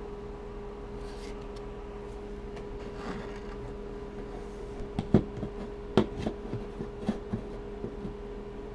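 Trading cards being handled: a cluster of sharp taps and clicks starts about five seconds in and runs for a couple of seconds, over a steady electrical hum.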